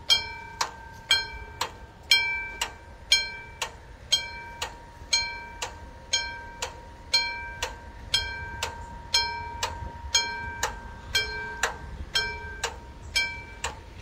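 Railroad level-crossing warning bell ringing steadily at about two strikes a second, each strike ringing on briefly. It is the signal that the crossing is closing for an approaching train.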